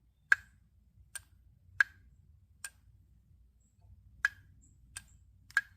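Sharp clicking from a loose wheel sitting free inside the gear cap of a removed Audi throttle body, seven separate clicks at uneven intervals. The wheel simply moves freely; the clicking does not mean the throttle body is bad.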